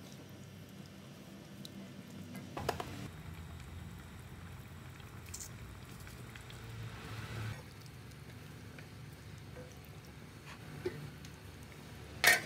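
Rawon beef broth simmering in a pan with a soft bubbling. There is a single knock of the spatula about a few seconds in. Near the end a glass lid with a steel rim is set down on the pan with a loud clatter.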